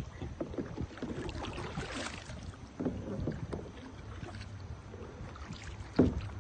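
Paddle strokes in river water: irregular splashing and dripping, with a swish about two seconds in and a louder thump near the end.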